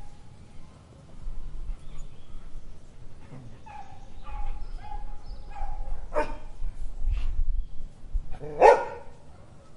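A dog barking twice, a couple of seconds apart, the second bark the loudest, over a low background rumble.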